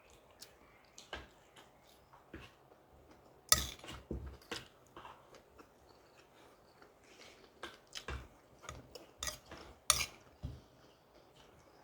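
A spoon or fork clicking and scraping against a plate, with chewing and mouth sounds between; the sharpest clinks come a few seconds in and again near the end.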